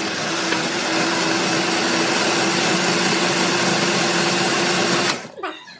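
Kenwood countertop blender running, grinding a thick green chilli and garlic chutney into a purée: a loud, steady whir with one constant hum. It switches off near the end.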